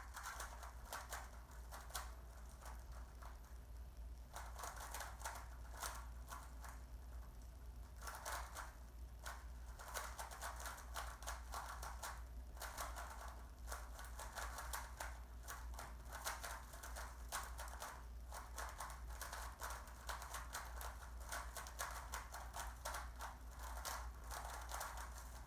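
A Rubik's cube being turned rapidly through a speed solve: a continuous run of quick plastic clicks and clacks as its layers are twisted.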